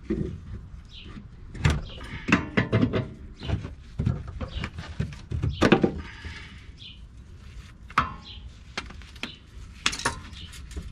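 Irregular hammer blows and metal clanks on an old Blackworks lower control arm on a Honda Civic, knocking the seized arm loose from its mount. The densest run of strikes comes about two to three seconds in and another about six seconds in, with single knocks near the end as the arm comes free.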